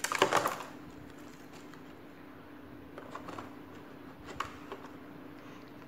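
Clear plastic bag crinkling as it is opened and handled for about half a second, then small drone parts handled over a plastic packing tray with a few light clicks, the sharpest about four and a half seconds in.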